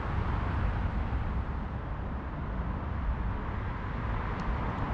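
Steady outdoor background noise: a low, uneven rumble with distant traffic hum, no distinct event.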